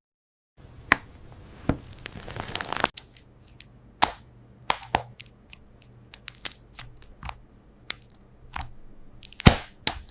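Sticky nano tape crackling and clicking as it is handled, stretched and pressed: irregular sharp cracks, a denser crackle about two and a half seconds in and the loudest crack near the end.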